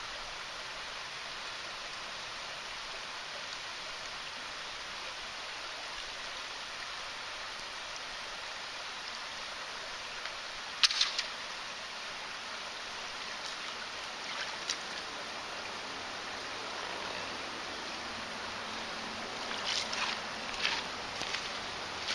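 Shallow creek water flowing steadily over a stony bed, with one sudden sharp splash about eleven seconds in as a small sunfish is lifted out on the line, and a few short crunches of footsteps on gravel near the end.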